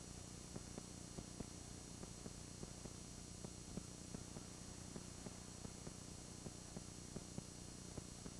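Steady low hum and hiss with a few faint high whining tones and irregular soft clicks, several a second. No distinct event stands out.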